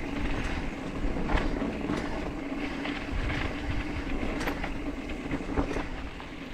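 Mountain bike rolling along a dirt trail: tyre rumble over the ground with a steady buzz underneath and scattered clicks and rattles from the bike.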